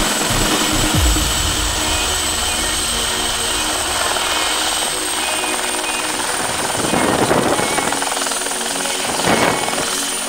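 Turbine helicopter running at full rotor speed and lifting off from snow: a steady high turbine whine over the beat of the rotor. There are two gusty surges of noise, about seven and nine seconds in.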